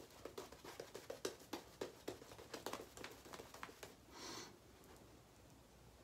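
Faint wet crackling and squishing of a Paladin Beehive shaving brush working lather on the face, in quick irregular strokes that stop about four seconds in. A brief soft hiss follows.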